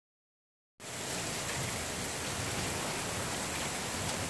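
Hail mixed with rain falling steadily on pavement and lawn, an even hiss that starts abruptly just under a second in.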